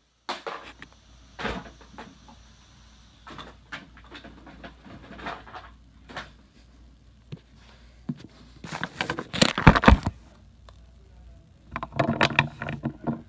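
Scattered taps, knocks and rustles of small things being handled and set down, with a louder cluster about nine to ten seconds in.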